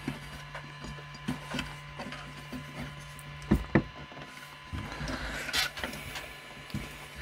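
Small desktop CNC mill's stepper-driven axis jogged in small increments, giving scattered light clicks and ticks over a faint steady hum. Two sharper clicks come about halfway through and a brief rubbing sound a little later.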